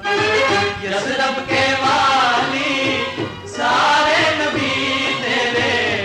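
A 1950s Urdu film naat recording: voices sing in a chant-like line over a musical accompaniment, with a brief dip about three and a half seconds in.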